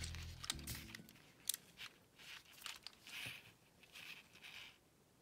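Tail of background music fading out in the first second, then faint scattered clicks and brief rustles of hands handling a Lego plastic train chassis.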